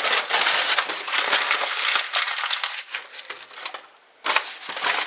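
Newspaper being crumpled by hand into balls and stuffed into a wood cookstove's firebox to lay a fire: a dry crackling rustle in two bouts, with a short pause a little before the end.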